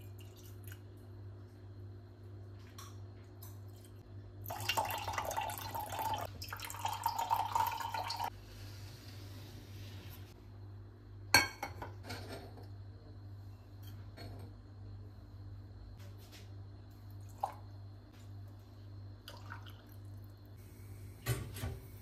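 Liquid being poured in two spells a few seconds in, then a single sharp knock and scattered light taps and clinks of kitchenware on a stone countertop, over a steady low hum.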